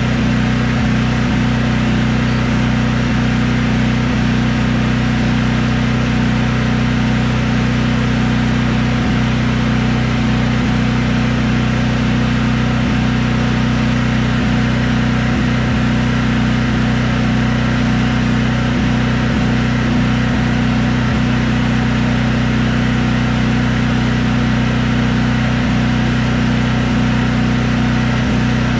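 Briggs & Stratton Elite 8000 portable generator's engine running at a steady, even speed, a loud constant drone.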